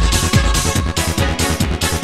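Early-1990s Sonido de Valencia electronic dance music (makina/bakalao) playing from vinyl in a DJ mix: a steady kick drum a little over twice a second under layered synths.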